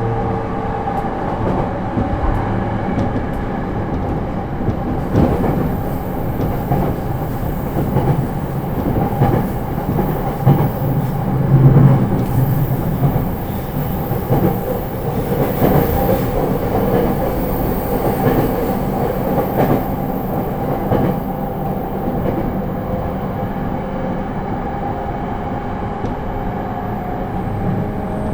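Running sound heard inside a JR East E231-series suburban electric train at steady speed: its Hitachi IGBT inverter and traction motors hum steadily over the rumble of the wheels, with irregular clacks as they cross rail joints.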